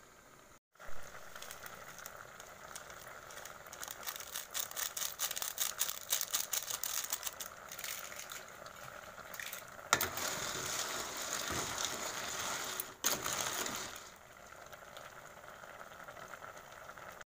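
A pot of river snails in their shells boiling hard in tomato broth: rapid bubbling with fast crackling and popping, and a couple of sharper clicks in the second half.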